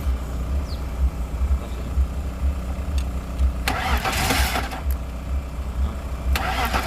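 BMW M50 straight-six engine idling with an uneven low beat, the engine being checked for a misfiring cylinder. A hissing noise comes in twice, once in the middle and again near the end.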